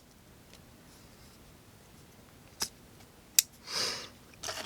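CRKT M40 deadbolt-lock folding knife being handled: two sharp clicks a little under a second apart, about two and a half seconds in, followed by a short rustle.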